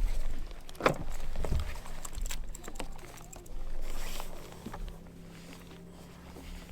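Scattered knocks, thuds and handling noise on a bass boat, the sharpest about a second in. A steady low hum runs under it from about two-thirds of the way through.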